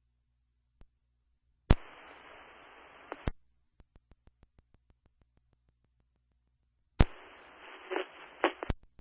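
Fire department two-way radio channel heard through a scanner: two short transmissions of open-mic hiss with no voice, each starting and ending with a sharp click as the radio keys up and unkeys. A run of faint, fading ticks falls between them.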